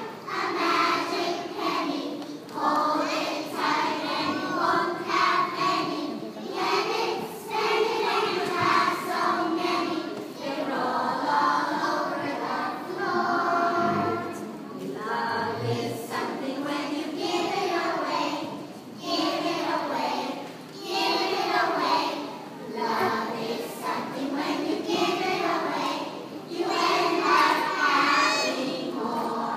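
A large group of young children singing together in unison, line after line with short breaths between phrases.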